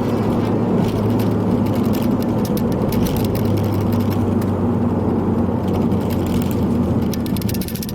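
Ford Focus ST's turbocharged four-cylinder running at a steady engine speed under road noise, heard from inside the cabin, with a rapid clicking rattle from the camera's loose strap clips. Just before the end the engine note drops away as the throttle eases off.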